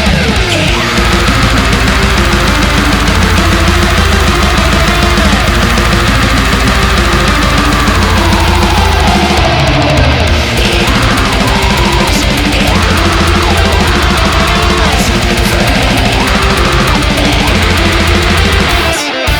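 Loud heavy metal music with distorted guitar and fast drumming.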